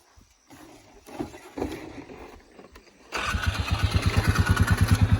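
Four-wheeler (ATV) engine starting about three seconds in and then idling with a steady, rapid putter. Before it starts there are a few soft knocks and rustles.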